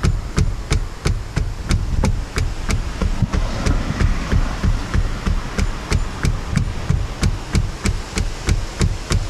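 Rattling knocks from the C-pillar of a VW Scirocco II, evenly paced at about three a second, each with a dull thud: a loose part inside the pillar clattering.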